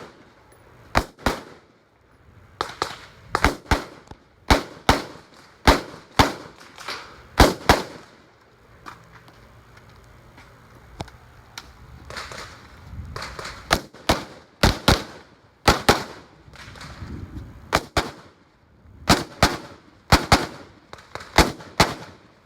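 Rifle shots fired in an irregular series: some two dozen sharp cracks, several in quick pairs, with a lull of a few seconds near the middle.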